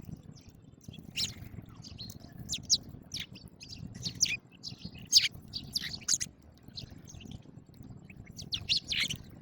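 House sparrows chirping: a flock's short, repeated high chirps overlapping irregularly, busiest about halfway through and again near the end.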